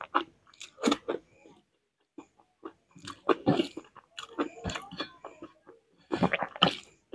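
Close-miked chewing and wet mouth sounds of a person eating rice and vegetable curry by hand, in irregular bursts with a short pause about two seconds in.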